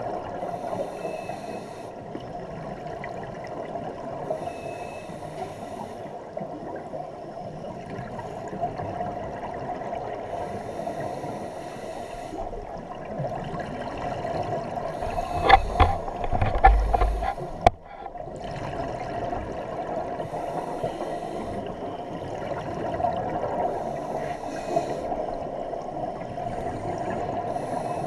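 Scuba regulator breathing heard underwater: exhaled bubbles bursting out every few seconds over a steady hum. A cluster of loud knocks and thumps comes about halfway through.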